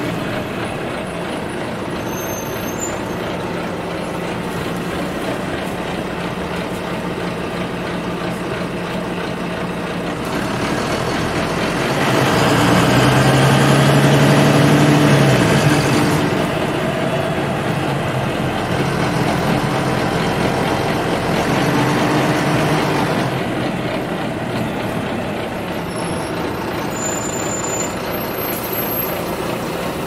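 Inside a moving city bus: steady diesel engine drone and road rumble through the cabin. About a third of the way in the engine note grows louder for several seconds, then eases back.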